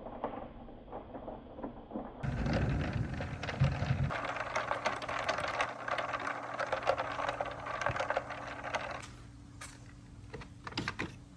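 Wooden marble run with marbles rolling and clattering along its wooden track: a dense run of small rapid clicks from about two seconds in, thinning to a few separate clicks near the end.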